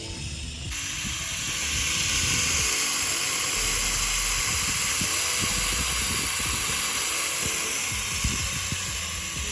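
Garden hose sprayer switched on about a second in, then spraying water in a steady hiss.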